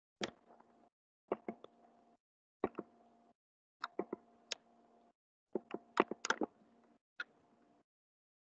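Sharp clicks from a computer mouse and keyboard being worked, in seven short clusters of one to four clicks, loudest about six seconds in. Each cluster brings in a faint steady hum that cuts off in the gaps between them.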